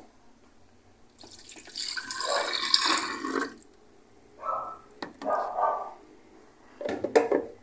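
Warm milk poured from a plastic measuring jug into a plastic blender jar: a splashing pour of about two seconds, followed by a few shorter splashes and a light click.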